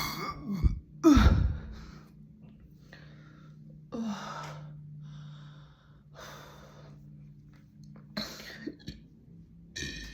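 A person's deep burp about a second in, its pitch falling as it goes. It is followed by breathing and a few softer, shorter burp-like sounds.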